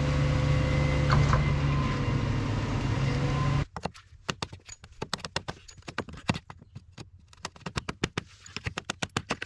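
A large engine running steadily, with a constant hum and several held tones, stops abruptly about three and a half seconds in. Then comes a quick run of light, sharp taps and knocks, several a second, from a hammer on the wooden footing form over fresh concrete.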